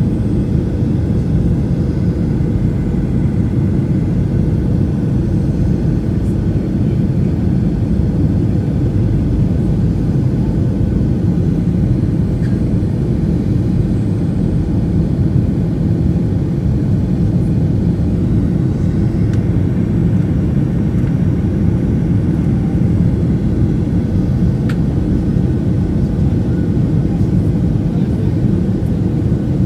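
Steady low cabin noise of a jet airliner on its landing approach, a mix of engine and airflow noise heard from inside the cabin near the wing-mounted engine.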